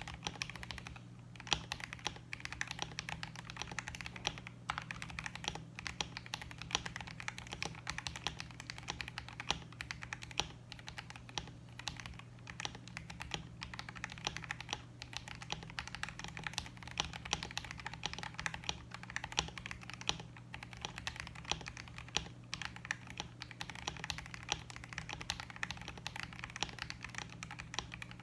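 Continuous typing on a KBD67 Lite R3 mechanical keyboard with lubed KTT Panda linear switches and PBT keycaps: a dense, unbroken stream of keystroke clacks. A steady low hum runs underneath.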